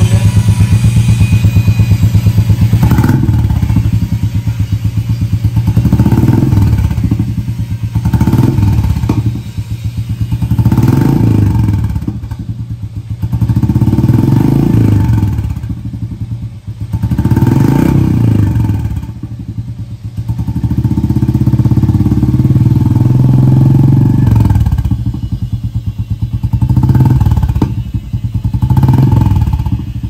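Royal Enfield Meteor 350's single-cylinder engine running through a freshly fitted aftermarket Indori silencer. It idles with a steady, even beat, then is revved over and over in throttle blips, with one longer hold about two-thirds of the way through.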